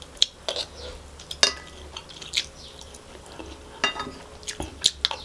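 Close-miked eating: a spoonful of kottu taken from a plate and chewed, with about six sharp clicks and smacks of spoon and mouth at uneven moments.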